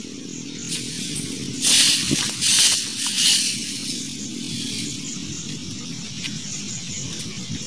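Strokes of a stiff-stalked broom (walis tingting) sweeping a dirt path, a few short scratchy swishes in the first half, over a steady low rumble.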